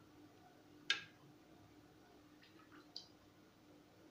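Two light clicks of a spoon against a non-stick kadhai as cooking oil is spooned in, a sharper one about a second in and a fainter one near the end, over a faint low hum.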